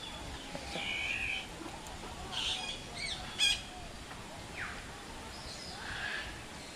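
Several birds calling: short separate calls come and go, with the loudest, sharpest one about three and a half seconds in and a quick falling call just after.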